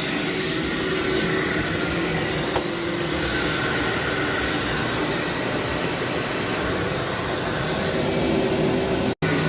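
Vacuum cleaner running steadily over heavily soiled carpet, sucking up a lot of dry soil and grit. The sound cuts out for an instant near the end.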